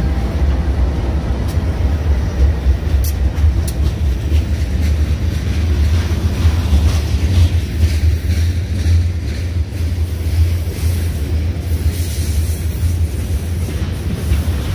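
Union Pacific freight train passing close by: the last diesel locomotive goes past, then covered hoppers and autorack cars roll by with a steady, loud low rumble. A couple of sharp clicks come about three seconds in.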